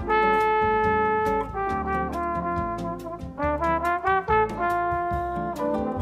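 Background music: a brass melody of held notes over a steady drum beat.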